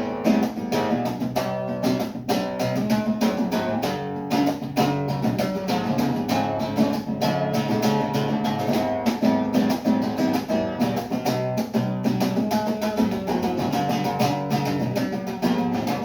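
Acoustic guitar strummed in a steady, quick rhythm, playing an instrumental passage of a song.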